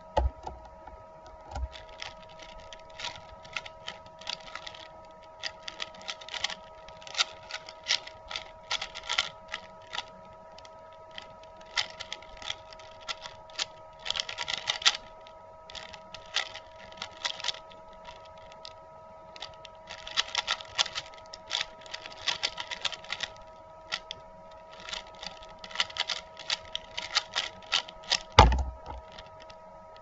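Stickerless Valk 3 speedcube being turned fast by hand during a layer-by-layer solve: quick runs of plastic clicking and clacking with short pauses between them. A dull thump comes near the end as the solve finishes.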